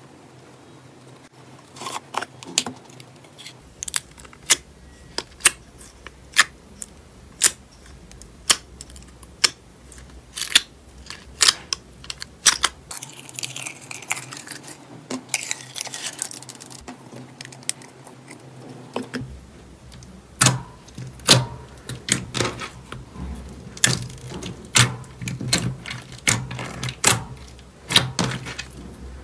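Clear slime with small beads being handled in and out of a plastic jar, making a run of sharp clicks and pops about once a second. About halfway through there is a longer crackling stretch, and near the end the pops come faster with soft squishy thuds.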